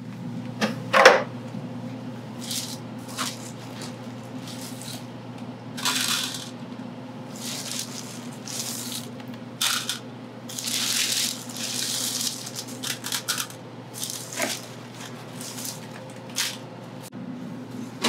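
Sodium hydroxide pellets scooped with a spatula into a plastic weigh boat: scattered clicks and rattles of the small pellets, with crinkling of the bucket's plastic bag liner, over a steady low hum.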